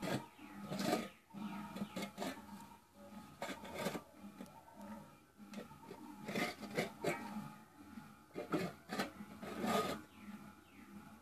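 Steel dishes scraped and rubbed on a wet concrete floor during child's-play dishwashing, in irregular scraping strokes about one or two a second.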